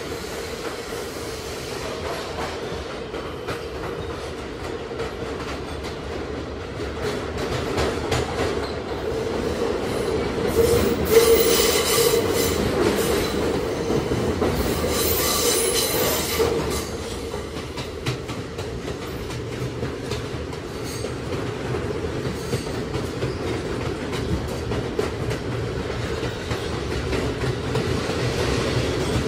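Kawasaki R211A subway car running between stations: steady rumble of wheels on rail with clicking over rail joints. There are bursts of high wheel squeal about 11 and 15 seconds in.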